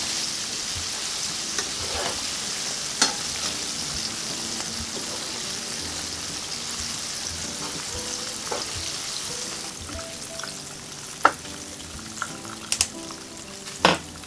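Battered chicken pieces deep-frying in hot oil, a steady sizzle that thins out in the last few seconds as the pieces are lifted out. A few sharp clicks of a metal mesh strainer and utensil knocking against the pan come once early and several times near the end.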